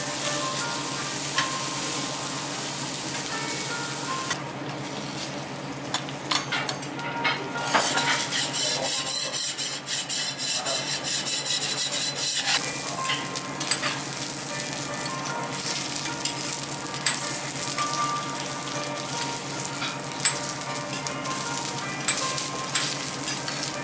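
Food sizzling on a teppanyaki iron griddle, with metal spatulas scraping and clicking on the plate. Near the middle comes a run of quick, even taps.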